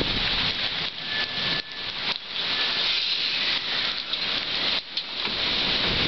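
Heavy, wind-driven thunderstorm rain: a steady, dense hiss, with a few brief dips in level.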